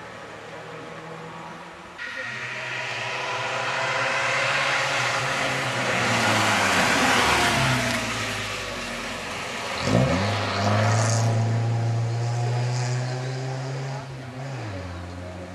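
Rally car on a gravel stage approaching and passing at speed, its engine note growing louder with a rush of tyre noise as it goes by. About ten seconds in the revs drop sharply and climb again as it takes the bend and accelerates away, with a gear change near the end.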